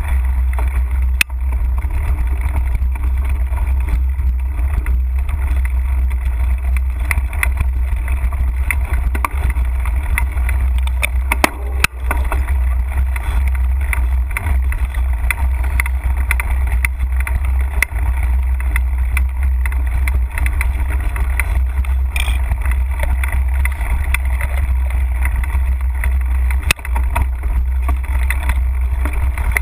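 Mountain bike rolling over a dirt singletrack trail: a steady low rumble with continuous rattling from the bike and scattered sharp knocks over bumps, the loudest about twelve seconds in.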